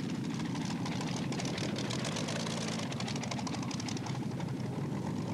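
Mini tractor puller's racing engine idling at the start line, running steadily with a rapid ticking over the low engine note.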